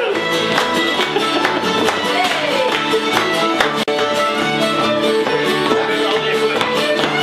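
Old-time string band playing a fiddle tune, the fiddle leading over plucked string backing. The sound drops out for a split second a little before four seconds in.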